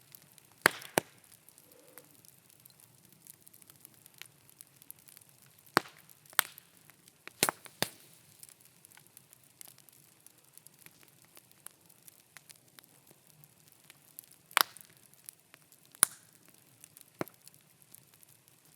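Wood bonfire burning, with sharp pops and snaps from the burning scrap timber at irregular intervals over a faint low crackle.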